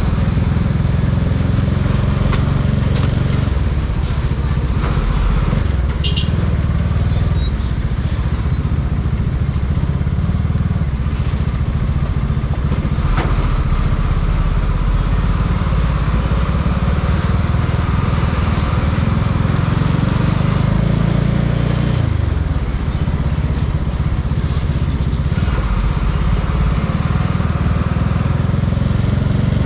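Bajaj Dominar 400 single-cylinder engine running while riding through city traffic, its note shifting a few times as the revs change, under steady road and wind noise.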